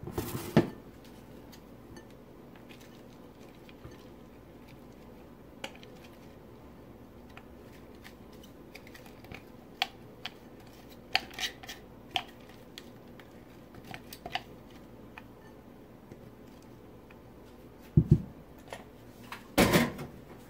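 Light clicks and taps of a plastic food-chopper bowl as chopped cauliflower is tipped and knocked out into a glass bowl. There is a clunk at the start and two heavier thumps near the end.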